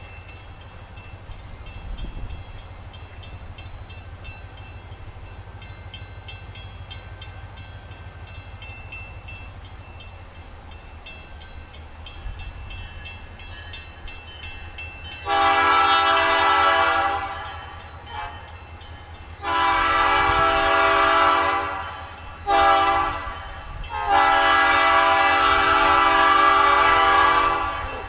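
EMD diesel locomotive running with a steady low rumble, then sounding its air horn in the grade-crossing pattern: two long blasts, a short one, and a final long one.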